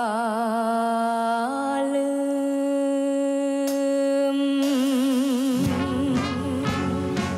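A female luk thung singer holds long sung notes with wide vibrato, alone at first, stepping up in pitch about a second and a half in. Near the end the backing band comes in with bass and drums.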